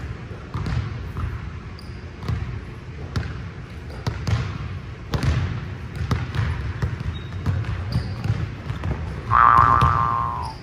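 Basketball dribbled on a hardwood gym floor, bouncing about once a second with a sharp slap each time. Near the end a loud pitched sound, about a second long and falling slightly, rises over the bounces.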